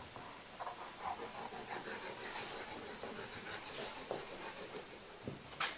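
Plastic squeeze bottle of wood glue being squeezed, with soft irregular squishing and sputtering as a bead of glue is laid on plywood; a sharp click near the end.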